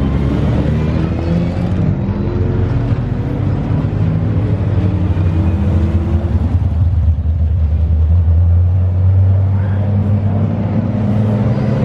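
Historic race car engines running at low revs as the cars drive slowly out to the track, with the deep, steady burble of an AC Cobra's V8 passing close by.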